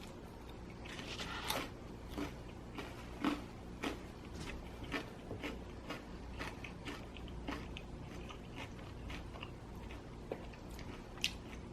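A person chewing extra-crispy pizza close to the microphone: irregular small crunches and wet mouth clicks, a couple each second.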